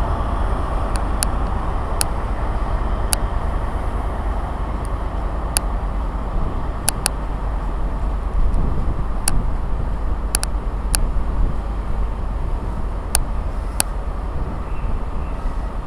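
A train running at the station: a steady low noise with scattered sharp clicks at irregular intervals.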